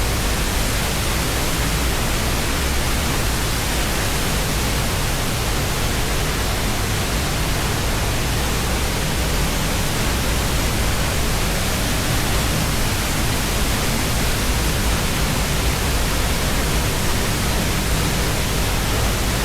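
Waterfall pouring: a loud, unbroken rush of water with a deep rumble underneath.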